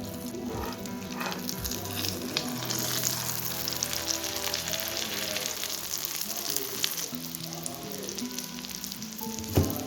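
Masala egg omelette sizzling and crackling as it fries in oil in a pan, with a single sharp knock near the end.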